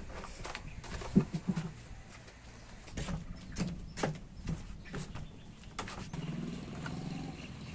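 Scattered knocks, clicks and rustles from a black fabric bag being opened and handled, the sharpest knock about a second in, with footsteps on a wooden deck in the middle. A low hum sits underneath in the last couple of seconds.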